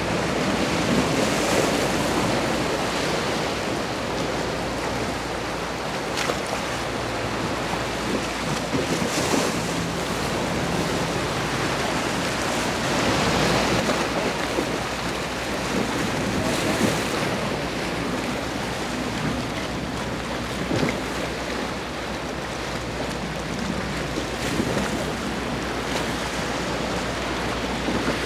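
Wind blowing across the microphone over the wash of small waves: a steady rushing noise that swells in several gusts.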